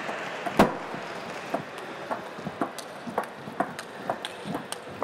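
Table tennis rally: the ball clicking sharply off the table and the players' paddles in quick succession, about three ticks a second. The loudest hit comes about half a second in.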